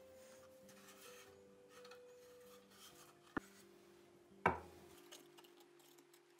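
A small pallet-wood box rubbing and sliding on a wooden tabletop, then a light tap and, about a second later, a louder wooden knock as it is set down. Soft background music plays underneath.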